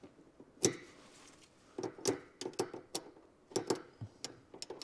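Hand tools on suspension hardware: about a dozen sharp, irregular metallic clicks and clinks as a wrench tightens a lock nut, with the clicks bunched between about two and five seconds in.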